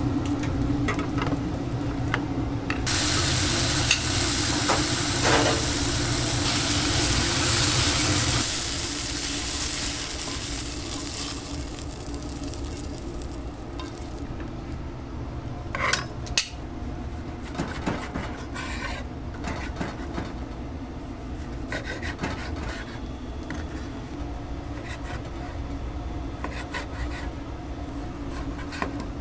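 A tuna block sizzles loudly as it sears in a hot cast-iron grill pan. After about eight seconds the sizzle gives way to quieter kitchen handling, with a couple of sharp clicks midway and light knocks later on. A steady hum runs underneath.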